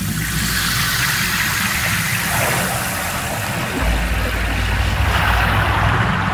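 Electronic stage soundscape: a deep, engine-like rumbling drone under a steady wash of hiss, the rumble swelling about four seconds in.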